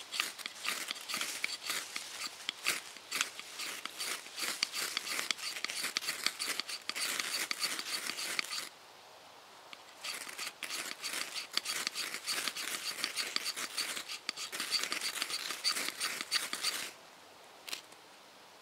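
A knife scraping a ferrocerium fire steel in fast repeated strikes, throwing sparks onto dead pine needles that are slow to catch. Two long runs of rapid scrapes are split by a short pause about nine seconds in, and one last scrape comes near the end.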